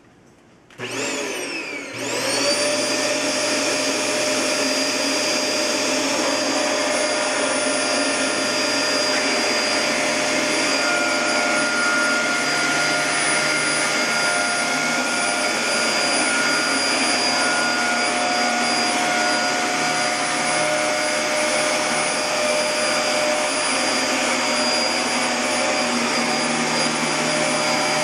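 A motor switched on about a second in, spinning up quickly in pitch and then running steadily with a loud whining rush.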